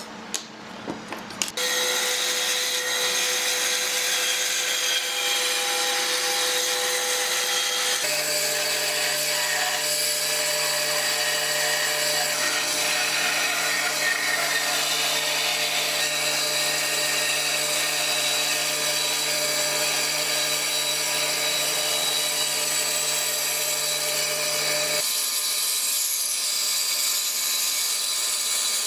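A few light knocks, then a band saw running and cutting through wood, a steady, loud cutting noise over the machine's tones. The sound changes abruptly a few times.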